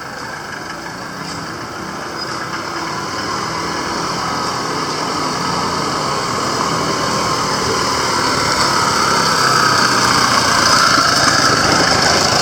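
Street traffic: a motor vehicle's engine running, growing steadily louder.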